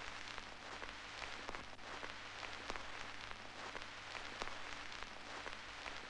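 Steady hiss with scattered crackles and a low hum: the background noise of an old film soundtrack, with no other sound standing out.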